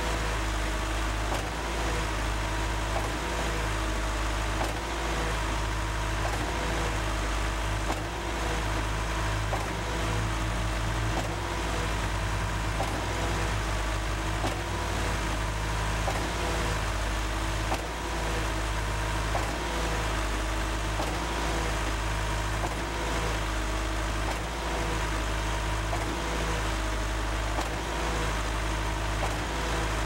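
REED A30HP concrete line pump running steadily as it pumps pea-gravel concrete fed into its hopper, with a steady engine hum and a regular knock about every second and a half.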